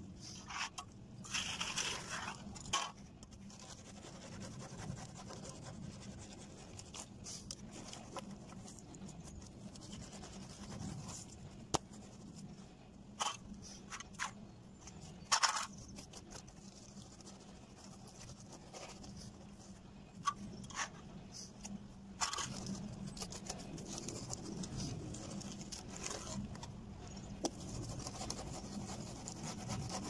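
Wooden screed board being worked back and forth across a freshly poured wet concrete slab, scraping along the timber formwork edges to level the surface, with a few short knocks as the board bumps the frame.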